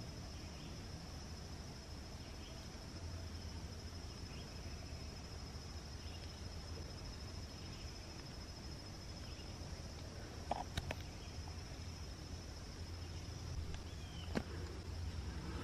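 Steady, high-pitched chorus of crickets trilling in the woods, with faint scattered chirps and a couple of sharp clicks near the end.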